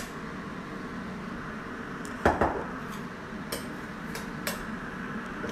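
Metal spoon stirring a lentil mixture in a glass bowl, clinking against the glass a few times, with one louder scrape about two seconds in.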